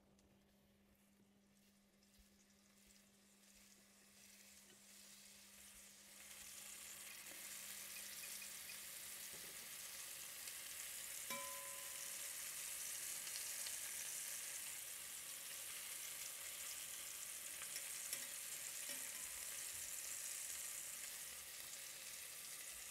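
Flour-dusted meatballs frying in a pan. The sizzle builds over the first six seconds, then holds steady. A single clink about eleven seconds in.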